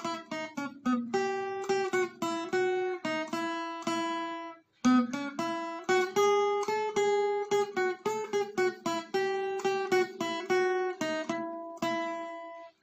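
Background music: acoustic guitar playing a run of plucked and strummed notes, breaking off briefly about five seconds in.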